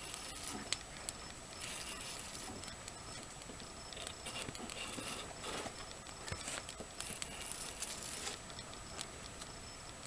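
Fairbairn-Sykes commando knife blade drawn two-handed along a stick, like a draw knife, peeling dry bark in several scraping strokes with small clicks and taps in between.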